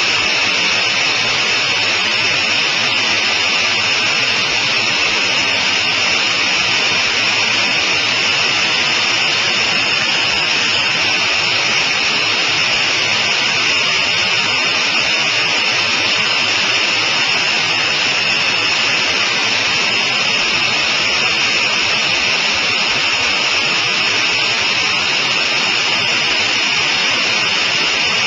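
Steady, unchanging drone of a Sonerai I's Volkswagen-based engine and propeller mixed with the rush of the airstream, heard from inside the cockpit in cruising flight.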